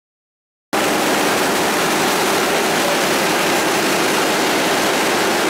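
Steady, loud running noise of food-factory processing machinery on a frying line, cutting in suddenly about a second in.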